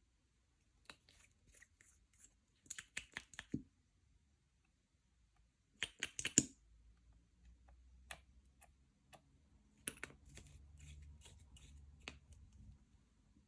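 Crisp small clicks and crackles from slime-making materials being handled by hand. They come in quick clusters about a second in and again around six seconds in, then scattered single clicks over a faint low rumble.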